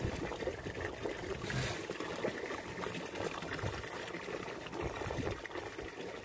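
Sea water lapping and sloshing against the side of a small boat, a steady wash of water noise, with a brief louder hiss about one and a half seconds in.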